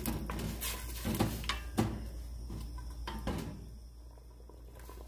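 Wooden spoon knocking against the side of a stainless steel stockpot while stirring beef in broth: a run of sharp knocks over the first three seconds or so, then quieter.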